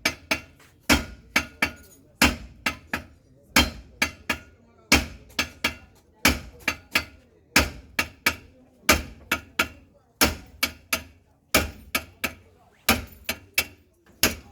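Steady hammering on a car's front steering knuckle and hub, metal on metal with a ringing strike, while a worn front wheel bearing is being knocked out. The blows come about three a second in repeating groups of four, the first of each group the loudest.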